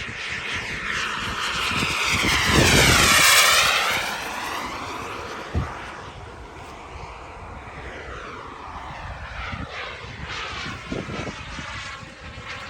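Boomerang Ranger radio-controlled turbine jet flying a pass: its turbine whine swells to loudest about three seconds in, sweeping down and back up in pitch as it goes by, then fades, with a fainter second pass near the end. Low gusts of wind on the microphone run underneath.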